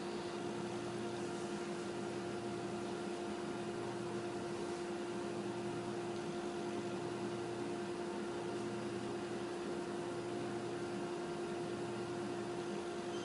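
Steady machine hum with a constant mid-pitched tone over even hiss, unchanging throughout.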